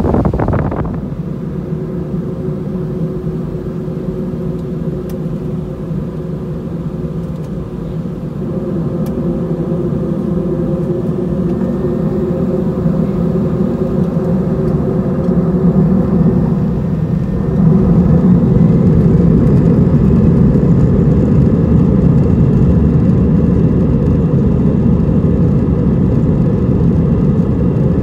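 Cabin sound of an Airbus A320's CFM56 turbofan engines heard from a seat over the wing as the airliner moves on the ground: a steady low hum with a few held tones. It grows gradually louder, then steps up about halfway through and stays there.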